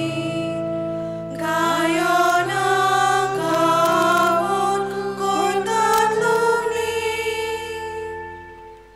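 Church voices singing the closing refrain of the Konkani responsorial psalm over held accompanying chords. The singing eases off about a second in, comes back, and the last chord fades out near the end.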